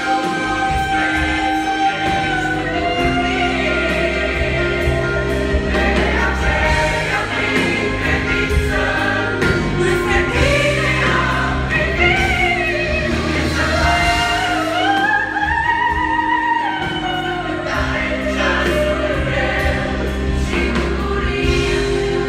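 A choir singing a Romanian Christian worship song, led by a solo singer, with band accompaniment. The melody wavers with vibrato over sustained chords and steady bass notes.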